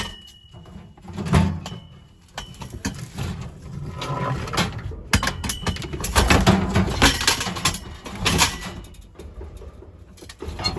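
Scrap metal being handled and unloaded: sharp metal knocks at the start and about a second and a half in, then a longer stretch of clanking and scraping in the middle.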